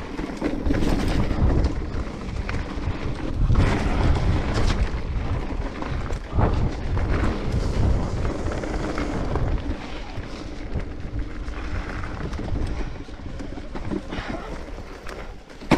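Electric mountain bike (Giant Reign E+1) riding a rough dirt trail: a low wind rumble buffets the microphone over tyre noise, with scattered knocks and rattles as the bike hits roots and bumps. It is loudest in the first half.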